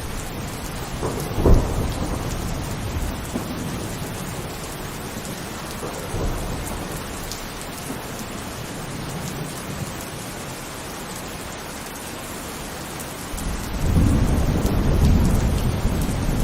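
Heavy rain falling steadily, with a sharp crack of thunder about a second and a half in and a loud low rumble of thunder starting near the end.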